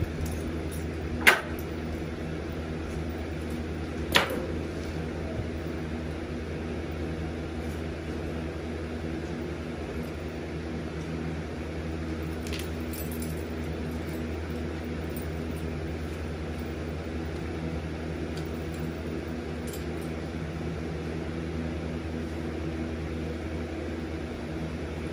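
Steady low machine hum, with two sharp clicks about one and four seconds in.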